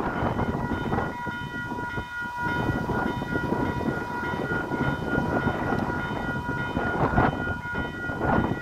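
Level crossing warning bells ringing steadily, mixed with heavy wind buffeting the microphone in gusts.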